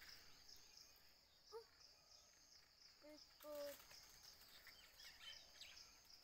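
Very quiet outdoor ambience: a steady high-pitched insect drone, with a few short pitched calls about one and a half, three and three and a half seconds in.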